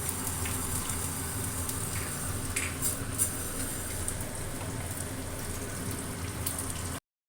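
Fish pieces frying in hot oil in a kadai, a steady sizzle, with a few light clicks about two and a half to three seconds in. The sound cuts off abruptly near the end.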